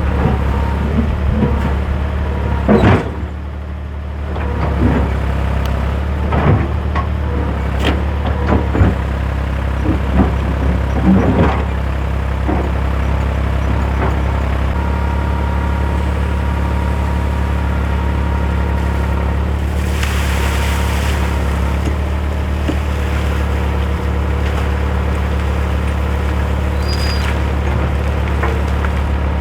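An engine running steadily, with a series of knocks and clanks over the first twelve seconds and a brief hiss about twenty seconds in.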